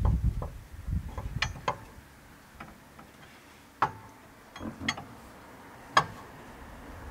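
Steel lug wrench clicking and clinking against the lug bolts and wheel of a VW bus as the bolts are checked for tightness. It is a scattering of sharp metallic clicks, the loudest two about four and six seconds in, one of them ringing briefly.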